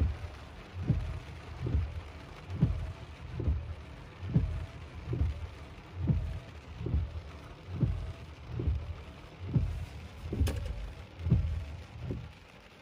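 Car windshield wipers sweeping in heavy rain: a regular low thump a little more than once a second, over a steady hiss of rain. They stop near the end, and there is a single sharp click about ten and a half seconds in.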